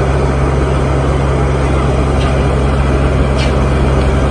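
Heavy diesel engine of earth-moving machinery running steadily at a low, even pitch, with a couple of brief faint hisses.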